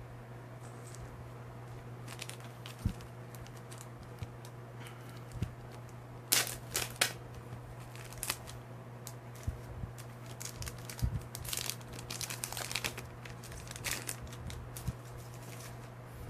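Trading card pack wrapper crinkling and cards being handled, in scattered short rustles and clicks, with a few louder bursts partway through and again later, over a steady low hum.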